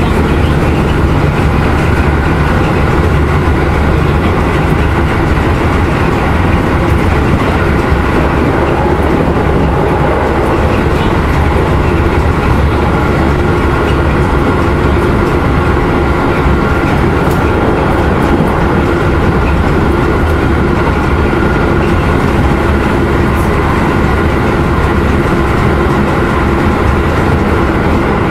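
Keisei 3050-series electric train running at about 105–112 km/h, heard from inside the passenger car: a loud, steady rumble and roar of wheels on rail.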